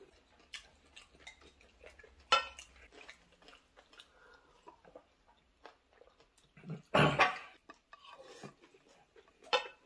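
Sounds of someone eating at a table: light clicks and clinks of tongs and a fork on plates and a glass, with one sharp clink about two seconds in. A single louder short sound breaks in about seven seconds in.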